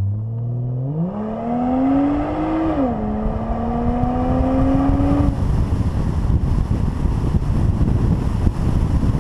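Ford Fusion Sport's 3.5-litre V6, run with its rear mufflers deleted, accelerating at open throttle. Its pitch rises, drops at an upshift about three seconds in, then climbs again. After about five seconds the engine tone is buried under wind rushing over the microphone.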